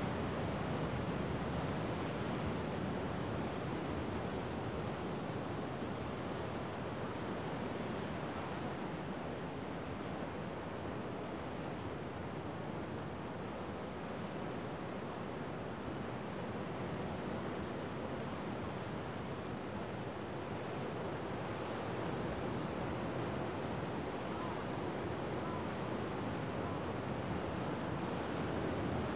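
Rough winter Sea of Japan surf breaking over a rocky shore: a steady wash of crashing waves that eases a little midway and builds again near the end.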